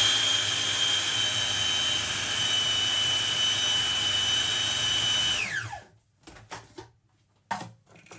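Food processor motor running steadily with a high whine as it mixes flour into creamed butter and sugar, then switched off about five and a half seconds in, its whine falling away as the blade spins down. A few light knocks follow near the end as the lid is handled.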